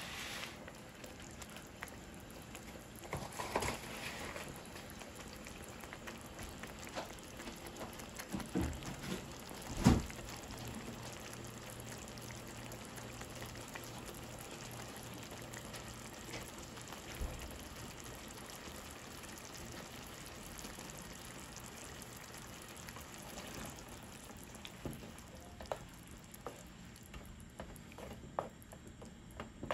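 Tomato salsa simmering in a skillet with a soft, steady bubbling, and a single knock about ten seconds in. Near the end a wooden spoon stirs the sauce, with light clicks against the pan.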